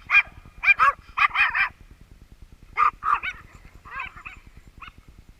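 A dog barking in quick runs of short, high barks, loudest in the first couple of seconds and then softer and sparser until they stop about five seconds in.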